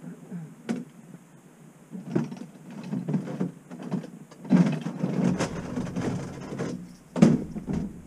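Scraping, rustling and knocking as a trap is set back in the ground, starting about two seconds in and busiest in the second half, with a sharp knock near the end.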